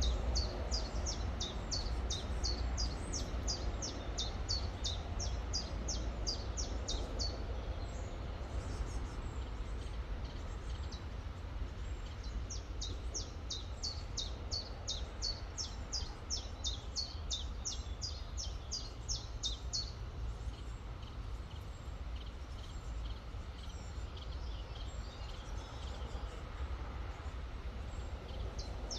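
A songbird repeating a quick, high, downward-sliding note, about four a second, in two long runs: at the start for about seven seconds and again from about twelve to twenty seconds in. Under it runs the steady rush of the river with a low rumble.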